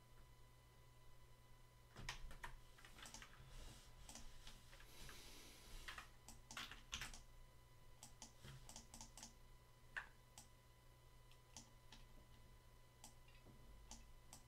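Faint, irregular clicks and taps of a computer keyboard and mouse, starting about two seconds in, over a steady low electrical hum.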